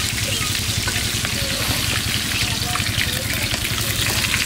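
Prawn curry simmering and sizzling steadily in a pan as its added water and lime juice cook down.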